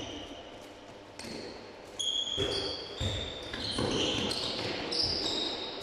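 Handball play on a sports-hall court: the ball thudding against the floor and hands several times, and players' shoes squeaking in short bursts.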